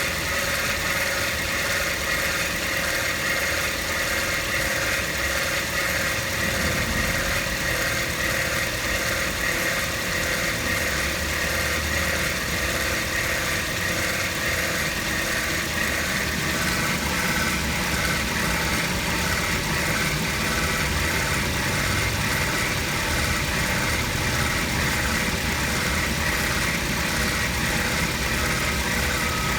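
Toyota Vitz engine idling steadily with a high-pitched whir running over it, a strange whirring noise that mechanics have not been able to trace.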